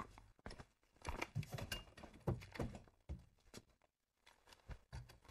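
Faint, irregular soft clicks and knocks of people moving about an office and settling at their desks.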